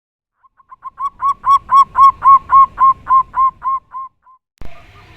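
A bird calling a rapid series of about a dozen short, even notes, each rising and falling in pitch, about four a second, growing louder and then fading away. An abrupt cut near the end brings in a faint background with other distant calls.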